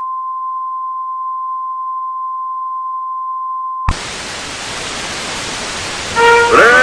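Television test-card tone: a steady high beep for about four seconds, cut off by a click into the hiss of TV static. Near the end, bending pitched electronic tones come in over the hiss.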